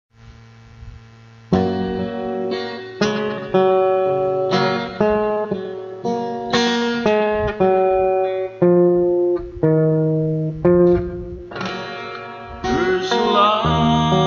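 Acoustic guitar playing a slow intro: single notes and chords plucked one after another, each ringing out, starting about a second and a half in. A man's singing voice joins near the end.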